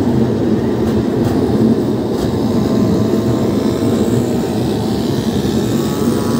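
Express train coach rolling along the track, heard from its open doorway: a steady loud rumble of wheels on rails, with a few clacks about one to two seconds in. A faint high whine comes in during the second half.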